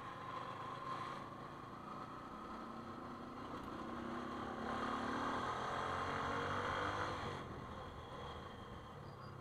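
Motorcycle engine running at riding speed, with wind rushing over the camera microphone. Around the middle the engine note climbs and grows louder, then eases off near the end.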